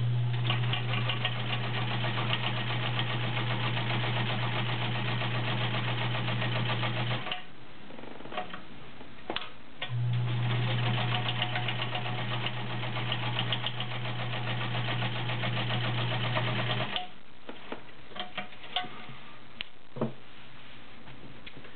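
Vintage all-metal Kenmore Model 110 straight-stitch sewing machine stitching through fabric. Its 1-amp motor hums steadily under a fast, even clatter of the needle mechanism. It runs in two bursts of about seven seconds each, with a pause of about three seconds between them, and a few light clicks follow the second burst.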